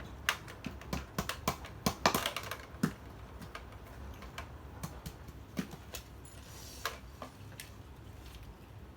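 Irregular sharp plastic clicks and knocks of Nerf blaster parts being handled and snapped together, thickest in the first three seconds and sparser after.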